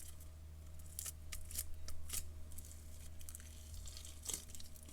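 Hands squishing and stretching a thick, sticky batch of over-activated clear glue slime, making irregular sticky crackles and pops.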